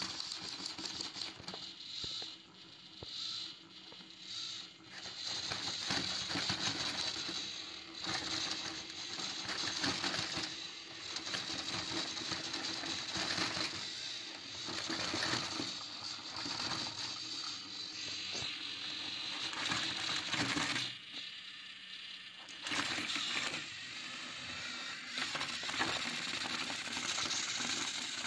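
Small electric motors of battery-powered plastic toy trains whirring, with a busy rattle of plastic gears and wheels on plastic track. The sound drops off briefly a little past three-quarters of the way through, then resumes.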